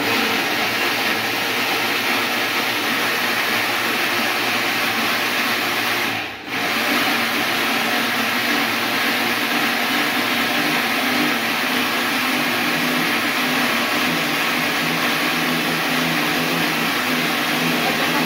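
Electric blender-type grinder running at speed, blending garlic cloves with olive oil into a paste. The motor noise dips briefly about six seconds in and then runs steadily again.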